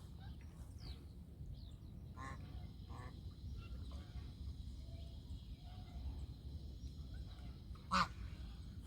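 Geese calling now and then, a few faint short honks followed by one louder honk near the end, over a steady low background rumble.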